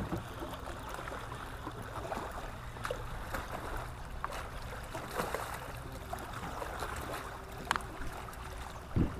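Water lapping and trickling against a fishing kayak's hull, with a few light knocks and a dull thump near the end.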